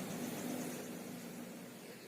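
Faint steady hiss of background noise, slowly growing quieter.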